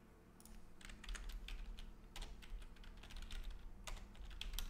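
Typing on a computer keyboard: an irregular run of key clicks starting about half a second in.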